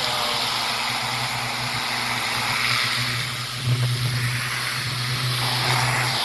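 Pressure washer running steadily: a constant motor hum under the hiss of the water jet spraying concrete. The hum grows louder a little past halfway.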